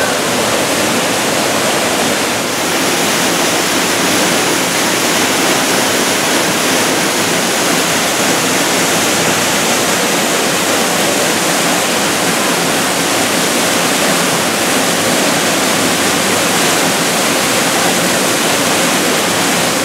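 Waterfall plunging into a rocky pool, heard close up: a loud, steady rush of falling and splashing water.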